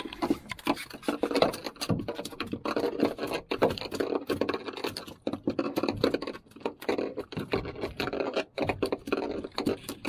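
A freshly landed pargo (red porgy) flapping on a fiberglass boat deck: rapid, irregular slaps and scrapes that go on without a break.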